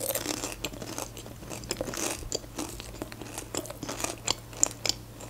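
A person chewing a mouthful of McDonald's food: many small, irregular crunches in quick succession.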